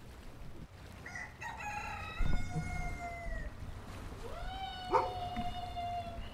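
A rooster crowing twice: two long drawn-out calls, the first falling away at its end, the second rising and then held. A low thump comes about two seconds in and a sharp click near the end.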